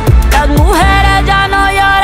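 Background music: a Spanish-language pop song, its lead melody holding notes and gliding in pitch over a deep bass beat.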